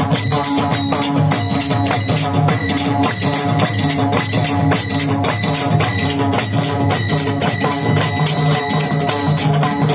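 Mrudang, the two-headed barrel drum of Marathi kirtan, played solo in a rapid, unbroken stream of strokes over a steady melodic accompaniment, with a metallic jingle ringing along.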